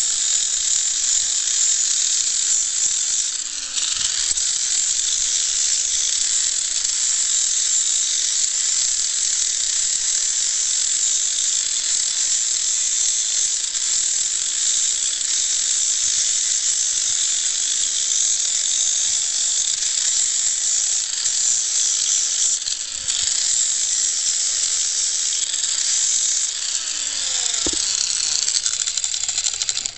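Handheld electric grinder sanding down a hoof wall: a steady, high grinding hiss that eases briefly about four seconds in and again near 23 seconds.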